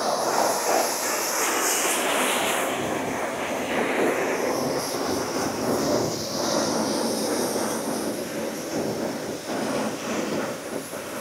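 Self-serve car wash high-pressure wand spraying water against a car's bodywork, a steady hiss that swells and dips as the spray moves over the panels.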